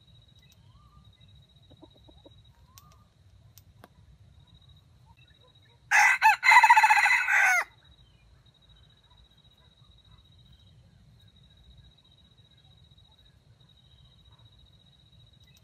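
A junglefowl rooster crows once, about six seconds in. The crow lasts under two seconds, opens with two clipped notes and breaks off abruptly. A few soft clucks come before it.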